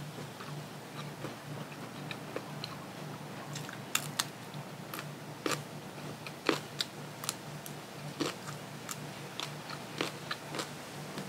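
A person biting and chewing food close to the microphone, with irregular crisp crunches and mouth clicks, several louder ones in the middle.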